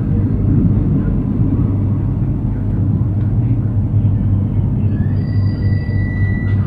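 Suburban electric train running, heard from inside the carriage as a steady low rumble. About five seconds in, a high electric whine rises and then holds at a steady pitch.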